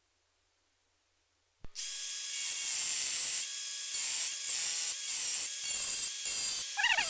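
Power impact wrench hammering on a bolt of a puller on a seized wheelchair-motor hub. It starts suddenly after a moment of silence and runs in repeated bursts, stopping and starting again several times, with a steady motor whine under the hammering.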